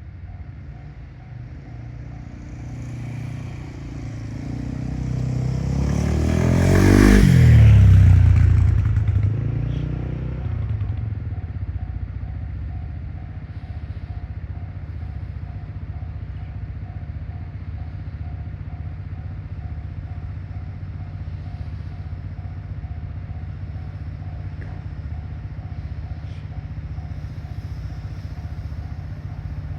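EF210 electric locomotive passing, its sound building to a peak about seven seconds in and dropping in pitch as it goes by, followed by the steady rumble of the freight wagons rolling past. A level crossing warning bell keeps ringing in an even repeating pattern.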